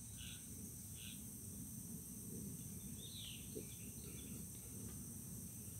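Faint outdoor background: a steady high drone of insects, with a few short bird chirps in the first second and a short falling bird call about three seconds in, over a low, even rumble. One small click comes just after the falling call.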